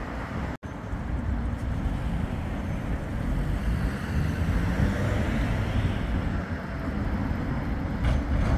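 Steady low rumble of road traffic while a Bombardier Flexity 2 tram approaches along its track, with a brief cut-out of the sound just after the start.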